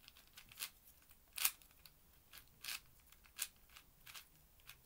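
Plastic 4x4 Rubik's cube layers being turned by hand, giving a string of irregular sharp clicks and snaps, the loudest about one and a half seconds in.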